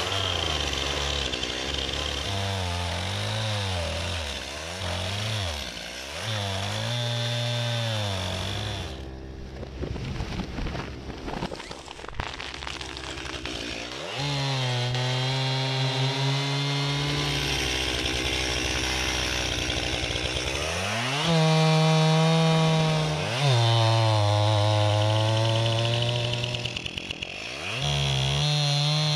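Stihl gas chainsaw cutting through a log and into the trunk of a standing tree, its engine revving up and down under load. About a third of the way in, it drops for a few seconds to a low idle with ticking, then runs at steady high revs with two quick rev-ups.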